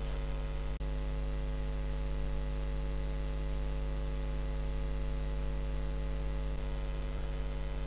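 Steady electrical mains hum with a stack of even overtones and a faint hiss, picked up by the narrator's microphone and recording chain. It drops out for an instant about a second in.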